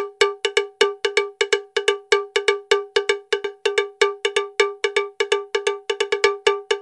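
Cowbell-like percussion beat: a single pitched metallic strike repeated about four to five times a second in a slightly uneven rhythm, each hit ringing briefly.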